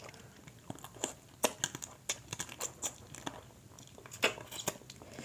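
Close-up eating sounds from shrimp in a seafood boil: shells being peeled and torn by hand, and chewing and biting. They come as a dense, irregular scatter of sharp clicks and crackles.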